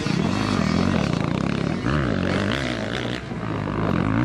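Motocross dirt bike engines revving, their pitch swinging up and down repeatedly with the throttle.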